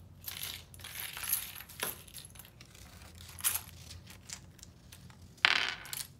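Plastic bingo chips clattering and rattling as they are tipped out of plastic baskets onto a tabletop, with a louder, longer clatter near the end.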